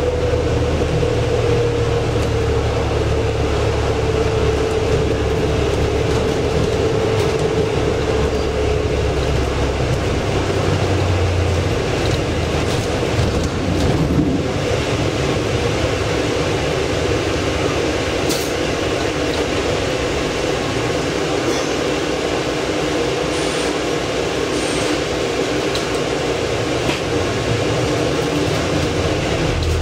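Cabin noise of a Volvo B5LH diesel-electric hybrid double-decker bus on the move, heard from the upper deck. A whine falls slowly in pitch over the first nine seconds or so. A low drone fades about twelve seconds in and comes back near the end.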